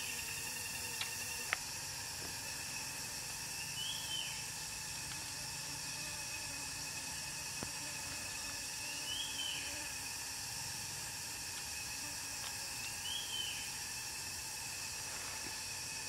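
Steady outdoor background hiss with a short rising-and-falling chirp repeating four times, about every four to five seconds, and a couple of faint clicks.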